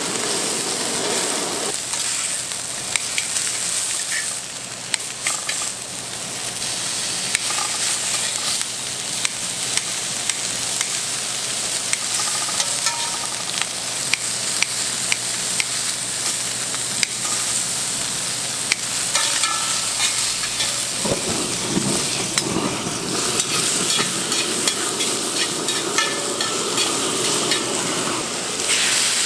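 Beef sizzling on a hot grill, a steady frying hiss with scattered sharp clicks. The sizzle grows fuller about three-quarters of the way through.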